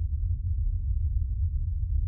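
Steady low rumbling drone of a dark ambient soundscape, deep and unbroken, with a faint held tone above it.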